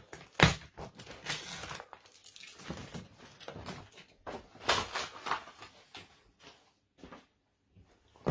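Paper drilling template and its tape being peeled off a plastic seatbox: a run of rustling, tearing noises for about six seconds, then only faint handling ticks.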